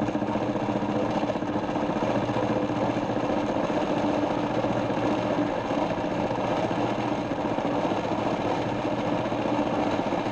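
Small metal lathe running steadily under power, its motor and drive humming while the tool cuts a spinning acrylic blank.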